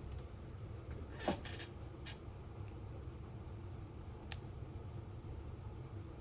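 Steady low hum with a few faint clicks and taps. About a second in comes a brief falling squeak, the loudest moment, and a sharp click follows a few seconds later.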